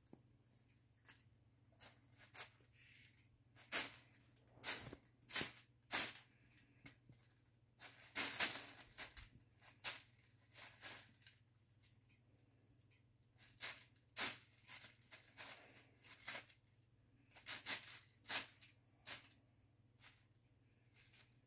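Thin plastic shopping bag crinkling and rustling in irregular bursts with short pauses as a cat paws and noses at it.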